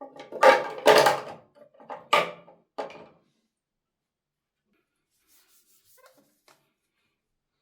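Handling noises of bathroom cleaning: several short rubbing and knocking sounds in the first three seconds, then a few faint clicks about six seconds in.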